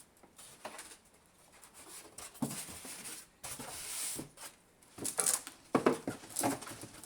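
Handling noises while unpacking a bench drill press: parts and packing material rustling, with several light knocks and clunks, more of them in the second half.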